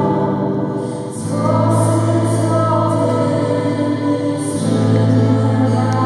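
Worship song played live: a woman sings into a microphone over sustained keyboard chords and guitar, with the harmony changing about a second in.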